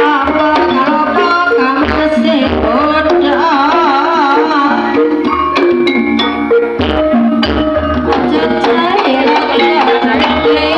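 Javanese gamelan music at full volume through a sound system: a repeating pattern of struck metal notes with kendang hand-drum strokes, and a wavering melodic line for a second or so in the middle. It is loud enough to overload the recorder.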